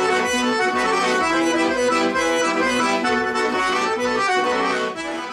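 Accordion (sanfona) playing a lively tune, chords and melody in steady held notes.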